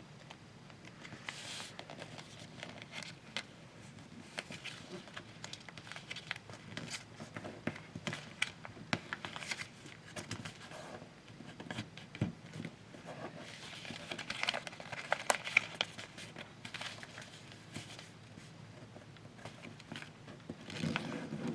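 Paper being folded and creased by hand: soft crinkling and rustling with short sharp crackles as folds are pressed flat, in irregular bursts that are busiest about two thirds of the way through.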